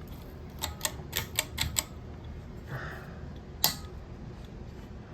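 A quick run of about six sharp clicks and taps from hard objects being handled, a short hiss, then one louder single click a little past the middle.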